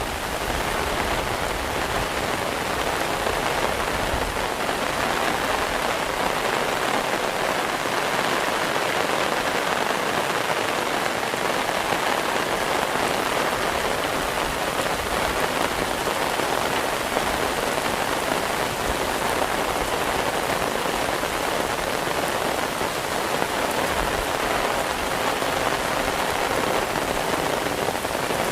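Heavy rain falling steadily on surfaces, a dense, even hiss of countless drops with no let-up.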